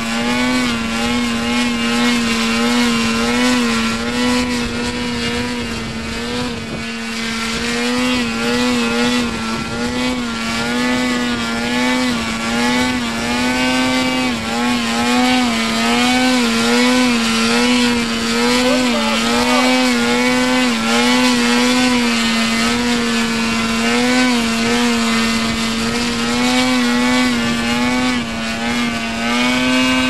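V-Bat 3.0 model tail-sitter drone's ducted fan running steadily in an autonomous hover, its pitch wavering up and down every second or so as it holds position in gusty wind. Wind rumbles on the microphone underneath.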